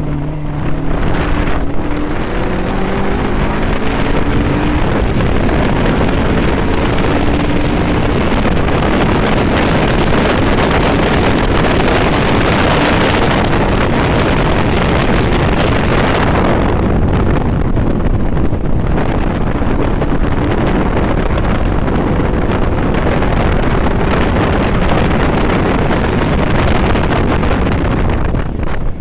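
Caterham R300's four-cylinder Ford Duratec engine driven hard on track, with rising engine pitch in the first few seconds after a gear change, mixed with heavy wind buffeting on the open cockpit's microphone.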